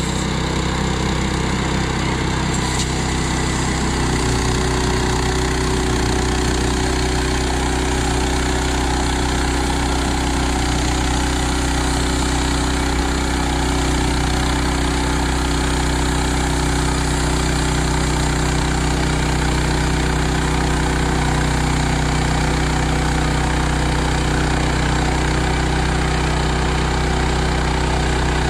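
Portable band sawmill's gas engine running steadily while the band blade saws through a log, its tone shifting slightly about four seconds in.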